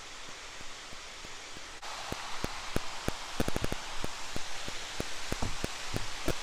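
Rain falling with a steady hiss, and drops tapping close by at an irregular rate, a few a second. The hiss grows fuller about two seconds in.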